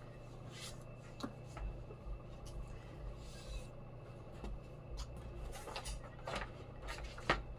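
Faint rustling and rubbing of a hardcover book and its paper dust jacket being handled, with a few light taps and scrapes scattered throughout.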